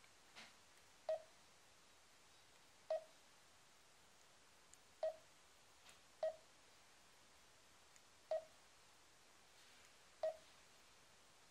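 Garmin Dezl 760 LMT touchscreen giving short mid-pitched confirmation beeps as its menu is tapped and scrolled, six beeps at uneven intervals over a quiet room.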